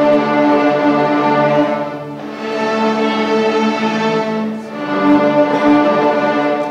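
Fourth-grade student string orchestra of violins, cellos and double basses playing a piece in held notes, easing back briefly about two seconds in and again around four and a half seconds in.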